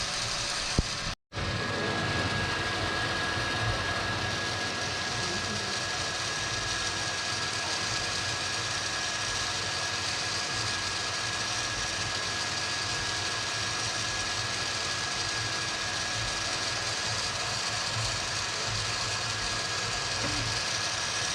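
3D printer running mid-print: a steady mechanical drone with a faint, steady high tone over it, cut by a brief dropout about a second in.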